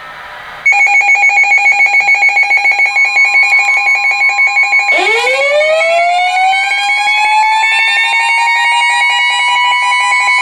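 Emergency alert tones: a loud electronic alarm pulsing about four times a second starts just under a second in. About five seconds in, a siren joins it, winding up in pitch over several seconds and levelling off into a steady wail.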